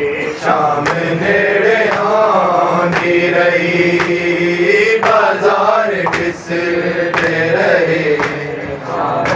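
A group of men chanting a noha, a Shia mourning lament, in unison, with the regular sharp slaps of matam (hands beating on chests) keeping the beat.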